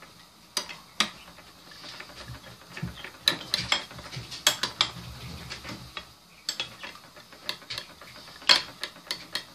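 A spoon stirring a ketchup-and-mustard sauce in a small glass bowl, clicking against the glass at irregular intervals, with the sharpest click near the end.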